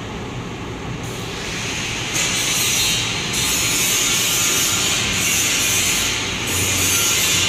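Two-colour UV-drying screen printing machine with servo motors running its automatic print cycle: a mechanical whir and hiss that grows louder about two seconds in and then comes in repeated stretches of a second or two.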